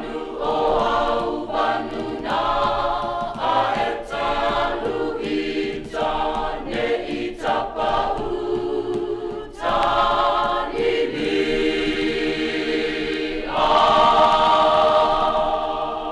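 Choir singing in several parts, in short phrases, then a long held chord near the end.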